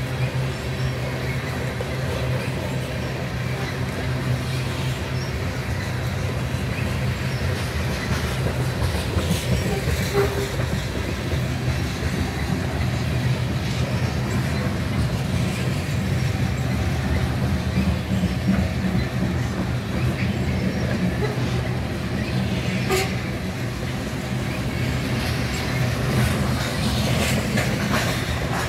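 Loaded freight train of covered hopper cars rolling past at close range: a steady rumble of steel wheels on rail, with a few sharp clanks and clicks.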